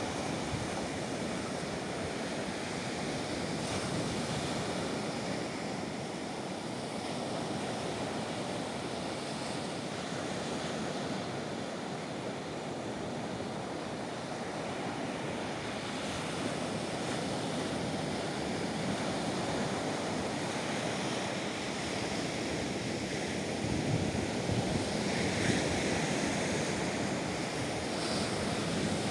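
Baltic Sea surf in winter: waves breaking and washing ashore in a continuous rush, with wind noise on the microphone. The surf swells a little louder near the end.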